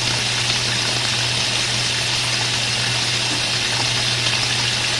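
Washing machine filling with cold water at the start of a Delicates cycle: a steady rushing hiss of water pouring into the tub, over a low steady hum.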